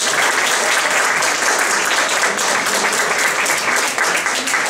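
Audience applauding, a roomful of hands clapping at a steady level.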